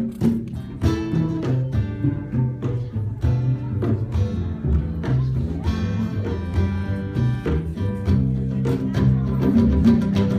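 Instrumental music with plucked string notes, such as guitar, over a low bass line, at a steady beat.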